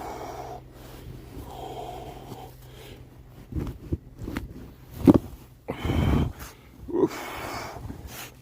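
A man breathing hard from exertion while wading through a thigh-deep snow drift, with a series of heavy, dull thuds from his steps plunging into the deep snow in the second half.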